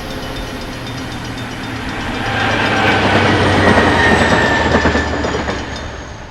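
A diesel-hauled passenger train passing: the locomotive's engine hums steadily and the wheels clack over the rail joints. It grows louder to a peak about three to four seconds in, then fades away, with a faint thin high squeal sliding slightly down in pitch.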